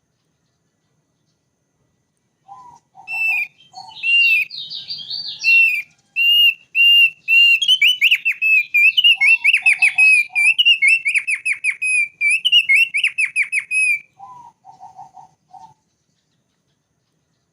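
Thick-billed heleia (opior paruh tebal) singing: a long song of high whistled notes begins about three seconds in, turns into rapid trilled phrases about eight seconds in, and stops about fourteen seconds in. Groups of short, lower notes come before the song, once in the middle, and again just after it.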